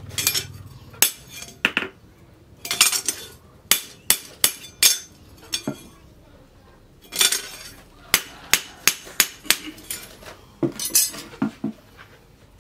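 Irregular sharp metallic clinks and taps of steel on steel, in short runs with pauses: tongs, iron rods and a leaf-spring cleaver blank knocking against a steel post anvil.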